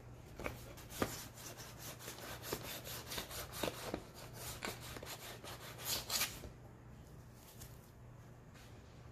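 White chalk scratching across black poster board in quick short side-to-side strokes, a rapid run of scrapes that stops about six seconds in.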